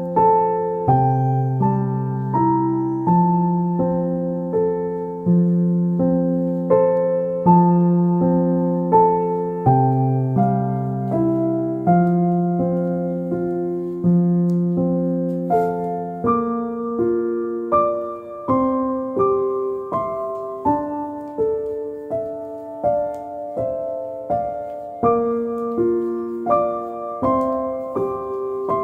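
Gentle solo piano music: a slow melody over held bass notes, the notes struck at an even, unhurried pace, with the bass moving higher about halfway through.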